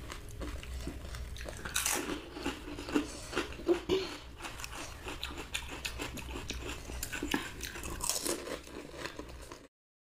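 Close-miked crunching and chewing of pani puri: crisp hollow puri shells cracking between the teeth, bite after bite. It stops abruptly near the end.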